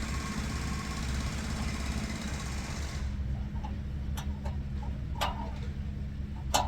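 Diesel truck engine idling steadily, with a few sharp metal clinks, the loudest near the end, as a wrench works on the truck's steel.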